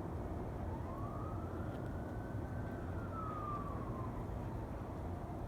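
Distant emergency-vehicle siren in a slow wail, one faint tone rising and falling once and starting to rise again near the end, over a steady low outdoor rumble.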